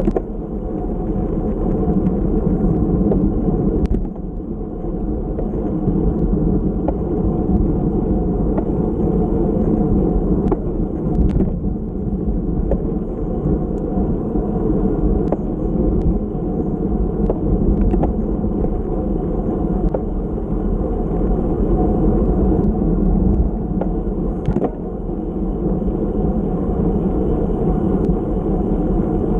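Wind and road rumble on a bicycle-mounted GoPro Hero Session while the bike is ridden in a race: a steady low rush with a few faint knocks.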